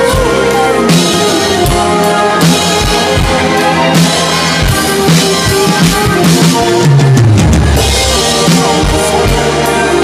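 Electronic drum kit played along with a recorded rock band track, with kick, snare and cymbals over sustained guitars and keys. The kick lands steadily about every three-quarters of a second, and a bass line slides down about seven seconds in.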